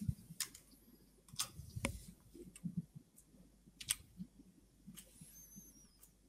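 Faint computer keyboard keystrokes and mouse clicks, a handful of separate sharp clicks spaced irregularly.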